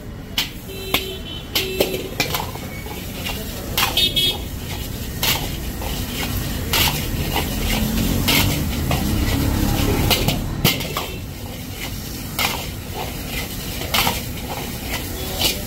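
Metal ladle clanging and scraping against a large iron wok while fried rice is stir-fried over a gas flame: sharp, irregular clangs about every second over a steady low background noise.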